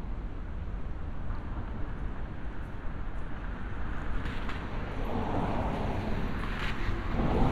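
Night-time city street traffic: a steady low rumble of road noise, with a car driving past around the middle and another swelling louder near the end.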